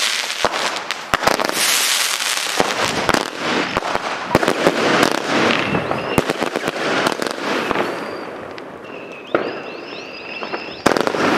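Evolution Fireworks 'Skyline on Fire' firework going off, with a dense run of sharp cracks and crackling. Later, high whistles sweep up and then hold, several times from about nine seconds in.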